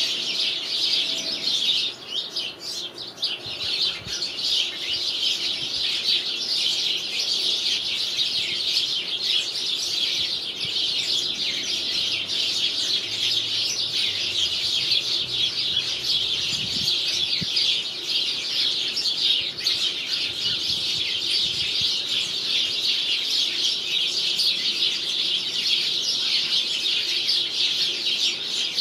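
A large flock of house sparrows chirping all at once in a dense, unbroken chatter.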